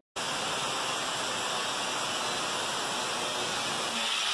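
A steady, even hiss with no distinct tone or rhythm, turning a little brighter near the end.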